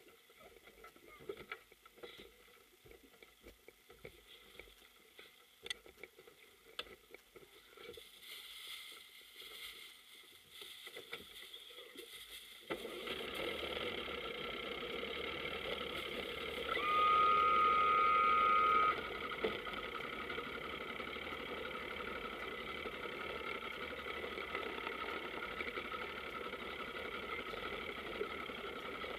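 Scattered knocks and clicks of handling, then, about a third of the way in, a powerboat engine starts and runs at a steady idle. A loud steady beep sounds for about two seconds a few seconds after the engine starts.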